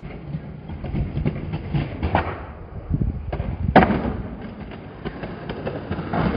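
Skateboard wheels rolling over stone paving slabs: a low rumble with frequent clicks, and one sharp loud crack just before four seconds in.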